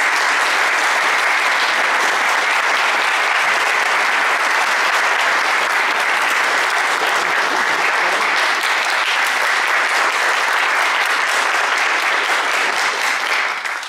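Audience applauding, a steady, dense clapping that dies away near the end.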